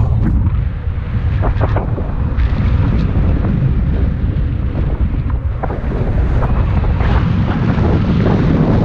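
Loud, steady rush of wind buffeting an action camera's microphone as a tandem paraglider flies at speed through steep turns, with a few short clicks in the rush.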